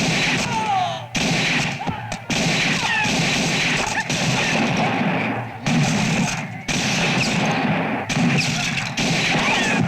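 Action-film fight soundtrack: a dense run of loud bangs and crashes over a steady rushing noise. It is broken by abrupt cuts every second or two.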